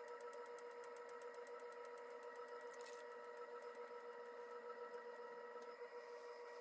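Electric potter's wheel running with a faint, steady motor whine while wet clay is thrown on it. Fast, regular light ticking fades out about two seconds in.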